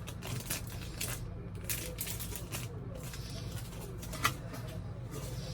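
Scattered clicks and rustles of a boxed auto part and its packaging being handled, over a steady low hum; one sharper click comes about four seconds in.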